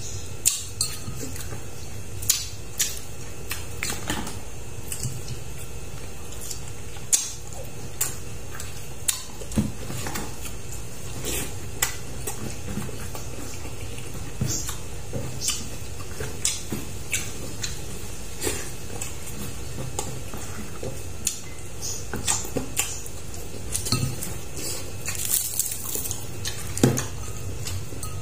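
Eating sounds from someone eating rice and fried fish with their hands: irregular sharp clicks and smacks about every second, over a steady low hum.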